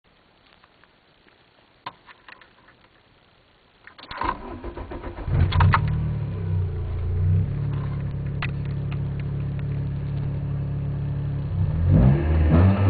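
A Golf 3 GTI 16v's 2.0-litre 16-valve four-cylinder cranks and fires about four seconds in, after a few faint clicks, then settles into a steady idle, with the throttle blipped near the end. The exhaust runs through a stainless 4-2-1 manifold with no catalytic converter and no middle silencer, only the stock rear box, and is heard from behind the car.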